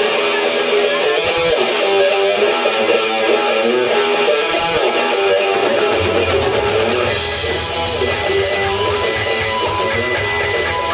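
Live rock band playing, electric guitars to the fore; about six seconds in, bass and a steady drum beat come in underneath.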